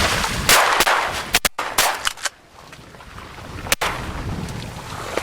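A quick volley of shotgun shots from several hunters firing at ducks in the first two seconds or so, followed by a quieter stretch.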